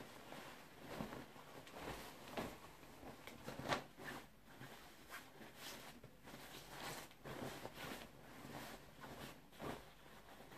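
Faint, irregular rustling of clothing and plastic packaging being handled, as a shirt is pulled out and unfolded, with a sharper crinkle about four seconds in.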